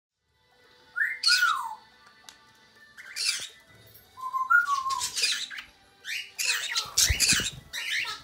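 Pet parrot calls: a series of short, loud calls with falling whistled glides, about a second in, around three seconds and around four and a half seconds, then several calls in quick succession near the end, with a low thump about seven seconds in.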